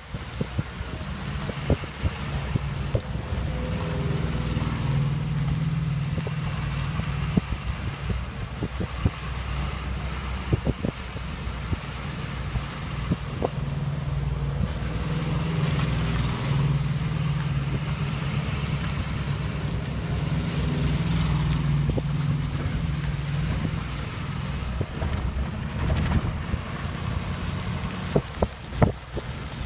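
Wind buffeting the microphone over a steady low engine hum, with scattered sharp knocks.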